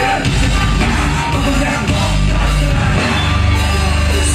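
Live rap-rock band playing loud, with drums and heavy sustained bass under a shouted vocal, and the crowd yelling along.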